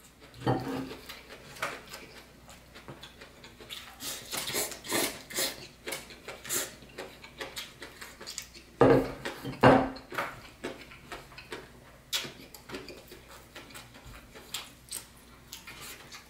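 Close-miked chewing and wet mouth sounds of a person eating, mixed with light clinks of a fork and dishes. The sounds are short and irregular, loudest around nine to ten seconds in.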